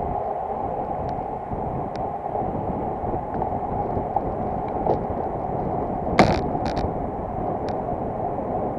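Steady rush of wind and tyre noise from road bicycles riding in a group on asphalt, with a few sharp clicks; the loudest, a pair, comes about six seconds in.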